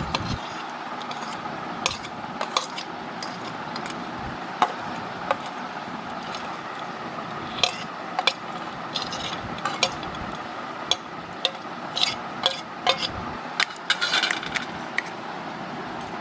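A metal spoon clinking and scraping against a bowl in irregular short ticks while dry fruits are stirred into thick sweetened yogurt for shrikhand, over a steady background hiss.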